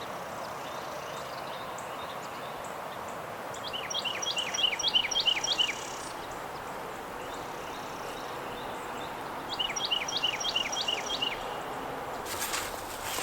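A songbird sings the same short phrase three times, each a quick run of falling whistled notes about two seconds long, over a steady background hiss. A few short rustling clicks come near the end.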